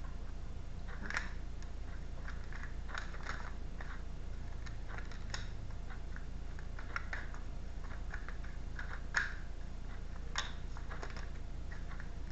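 A deck of tarot cards being shuffled and handled by hand: scattered soft clicks and flicks of card edges at irregular intervals, over a steady low hum.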